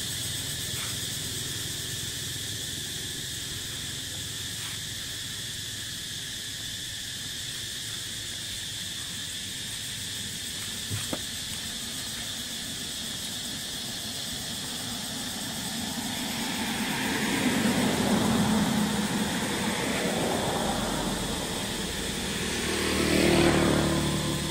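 Steady outdoor background hiss, then from about two-thirds of the way through, road vehicles passing by, each swelling and fading, the second pass the loudest near the end.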